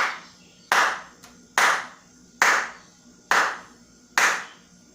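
A woman clapping her hands slowly and evenly, about six single claps a little under a second apart, each with a short ringing tail in the room. The claps are spaced one by one for children to count.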